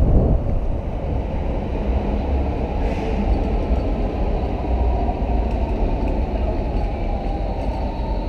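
Steady low rumble of rail traffic, heard from beneath an elevated railway viaduct, with a brief hiss about three seconds in.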